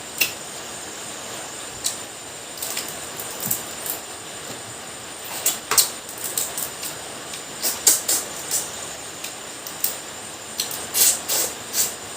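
Eating crab: irregular sharp cracks and clicks as shell is bitten and broken apart, with chewing, over a steady background hiss.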